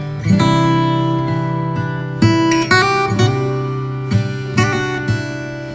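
Background instrumental music: guitar chords strummed and left ringing, with a new chord every second or so.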